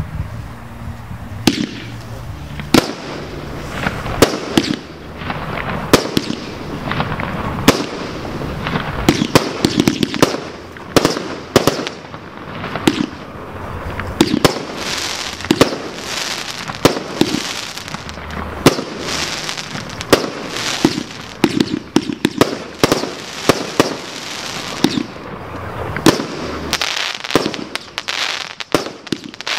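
Multi-shot firework battery (Ornamental ORN-138 Mandril) firing shot after shot: a steady string of sharp bangs from shots launching and bursting, coming faster through the middle, with crackling in between.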